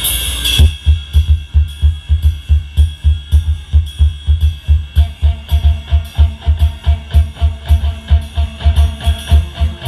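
Live mor lam band music over a large outdoor PA system. About half a second in, the full arrangement drops away to a fast, steady bass-drum beat of about four strokes a second with cymbal ticks over it, and a held higher note comes in about halfway through.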